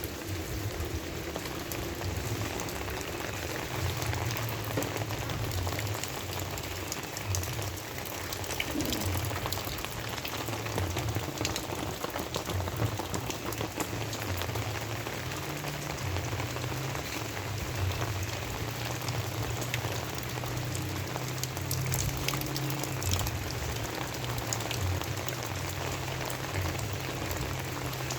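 Steady rainfall: an even hiss of rain dotted with many sharp drop ticks, over a low steady rumble.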